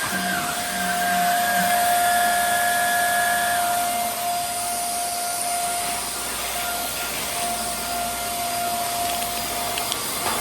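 Hoover Air Steerable upright vacuum cleaner running steadily: a constant motor whine over a rushing hiss of airflow.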